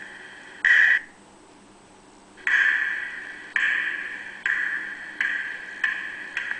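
A high-pitched ringing tone: one short burst about a second in, then struck again about once a second, five or six times, each stroke starting sharply and fading away.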